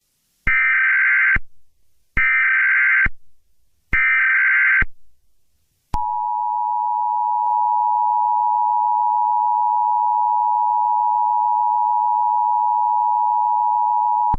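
Emergency Alert System signalling: three short, loud bursts of buzzing SAME header data tones, each just under a second long. About six seconds in, a steady EAS attention tone starts and holds without change.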